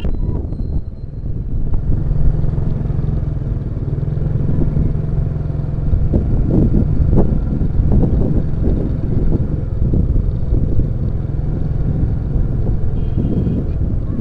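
Motorcycle engine running steadily at low speed, with wind rumbling on the microphone and growing gustier from about six seconds in.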